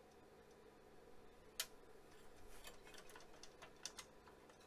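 Faint, scattered clicks and taps from hands handling parts inside an opened Apple Lisa computer's chassis: one sharper click about a second and a half in, then several lighter ones.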